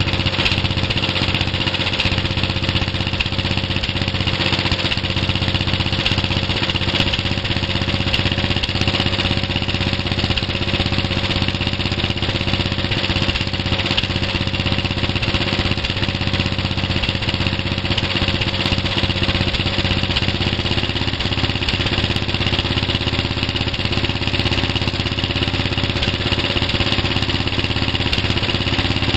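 Snapper riding mower's small engine idling steadily, the idle set a little too high, which the owner puts down to the carburetor needing adjustment.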